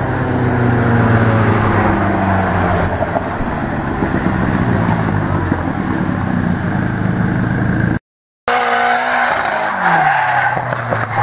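Turbocharged CA18DET four-cylinder engine of a Nissan Laurel drift car revving hard, its pitch falling over the first few seconds, with tyres skidding on the tarmac. About eight seconds in the sound cuts out for half a second, then the engine comes back and falls in pitch again near the end.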